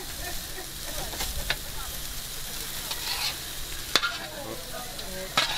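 Jerk chicken sizzling on a charcoal grill, a steady hiss and crackle of fat dripping onto hot coals. Metal tongs click sharply against the grill grate and a metal tray a few times as pieces are lifted off.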